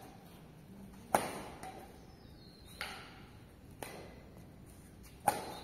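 Badminton racket strings striking a shuttlecock in a rally: sharp hits, the loudest about a second in and another near the end, with two softer hits between.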